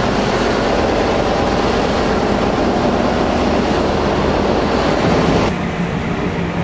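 A train running close by: a steady rumble of wheels and running gear with a low hum. About five and a half seconds in, the sound changes abruptly to a duller version of the same rumble.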